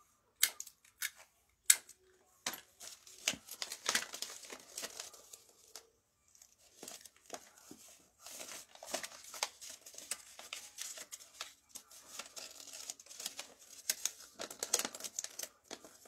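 Brown kraft wrapping paper crinkling and rustling as it is folded and creased around a small box, with a few sharp clicks and snaps in the first two seconds and a brief pause about six seconds in.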